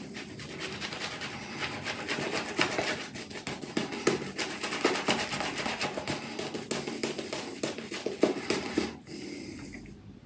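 Two-band Manchurian badger shaving brush working shaving-soap lather into three-day stubble on the face: a dense, fast scratchy brushing that stops about nine seconds in.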